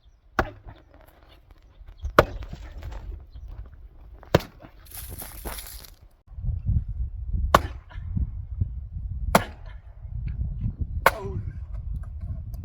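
Axe splitting firewood: six sharp chopping strikes, about one every two seconds.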